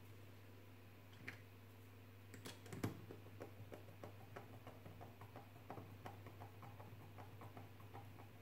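Hand screwdriver driving 12 mm flathead wood screws through a small fan into its 3D-printed ABS support. A few faint clicks come first, then from about three seconds in a run of small, quick ticks, about four a second, over a faint steady hum.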